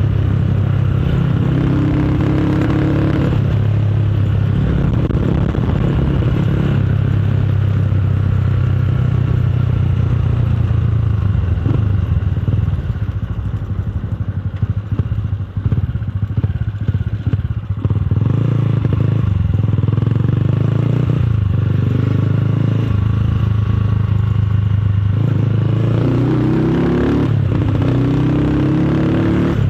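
Motorcycle with a loud aftermarket exhaust running under way. The engine note holds mostly steady, and in the middle it repeatedly drops off and comes back.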